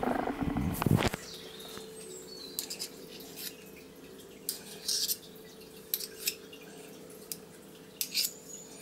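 A metal spoon clinking and scraping against a plastic mixing bowl and a cream cheese tub as cream cheese is spooned into whipped double cream: scattered light taps and clinks. A louder steady hum stops suddenly about a second in.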